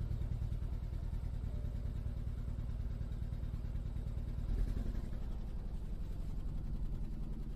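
2014 BMW 320i's N20 turbocharged four-cylinder engine idling rough at the exhaust, with an uneven low pulse and a brief louder swell about four and a half seconds in. The roughness is a misfire on cylinder 4, from a fuel injector stuck open.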